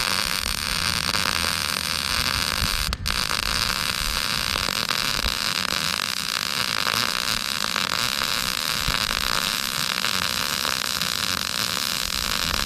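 Electric welding arc on steel, a steady crackling hiss with one brief break about three seconds in.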